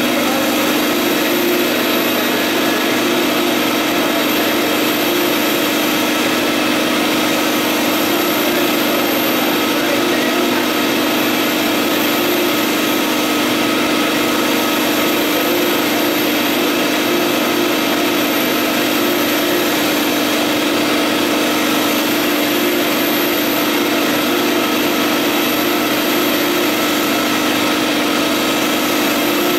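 Vutek UV-curable wide-format printer running while it prints onto rigid MDO sheets: a steady machine drone with a low hum, even in level throughout.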